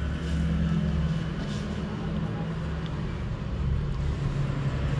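Steady low mechanical hum, even throughout, with no sharp sounds over it.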